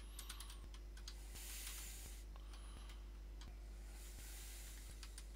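Faint computer keyboard typing: scattered, irregular key clicks over a steady electrical hum.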